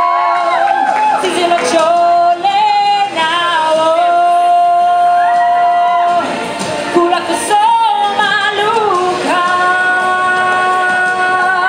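A woman singing solo into a microphone, holding long, steady notes joined by short gliding phrases.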